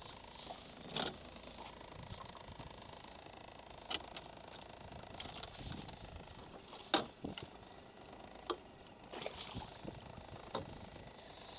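Handling noise in a small boat: scattered sharp knocks and clicks of gear against the hull, loudest about seven seconds in, over a faint steady hiss.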